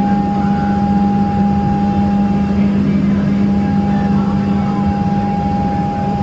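Steady cabin noise inside a Boeing 737-900ER on the ground: the even rush of the aircraft's ventilation air with a steady low drone and a higher steady whine.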